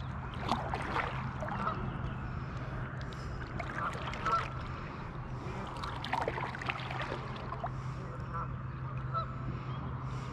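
Waterfowl honking in short, scattered calls over a steady low hum.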